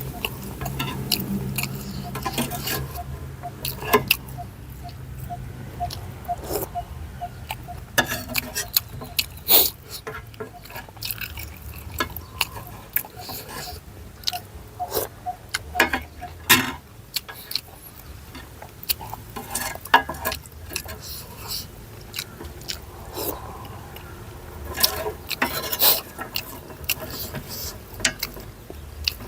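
A person eating noodle soup: irregular chewing and mouth smacks, with sharp clicks scattered throughout.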